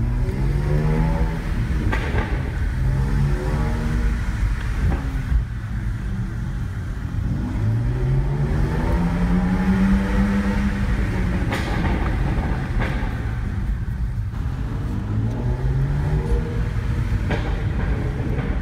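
BMW 330i's N52 3.0-litre straight-six, with a BMW Performance rear silencer and the midpipe deleted, pulling in low gear: the exhaust note rises in pitch four times, the longest pull about halfway through, over a steady low rumble. Between the pulls come several short sharp cracks, the exhaust pops the owner calls an 'AK47' sound.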